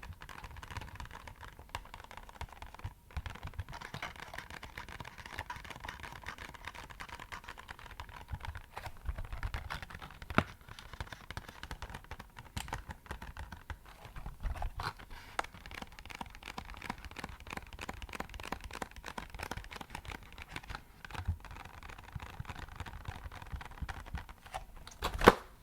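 Rapid, continuous tapping on an empty box, a dense patter that sounds a bit like rainfall, with a few louder single taps, the loudest near the end.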